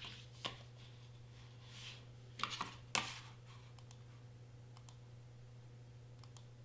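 Computer mouse clicking: a few scattered clicks, a tight cluster of louder ones about two and a half to three seconds in, then several light clicks.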